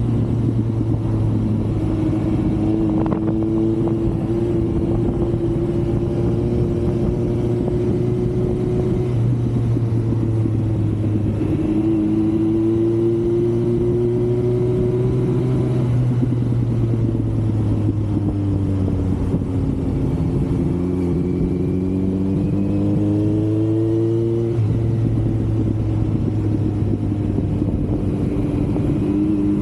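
Kawasaki Z900's inline-four engine running under way, its note rising and falling with the throttle and dropping suddenly about 25 seconds in, heard with wind noise on the camera microphone.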